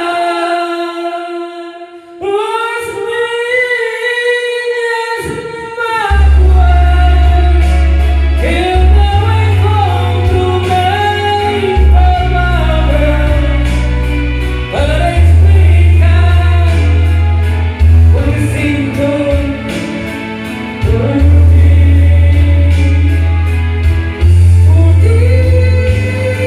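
Music: a song sung to a karaoke backing track, with a long held note at first and a steady bass line coming in about six seconds in.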